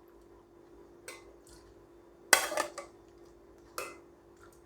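Kitchenware clinking and scraping as boiled grapes are scooped into a mixer-grinder jar. There are a few short knocks, the loudest cluster about two and a half seconds in, with another just before the end.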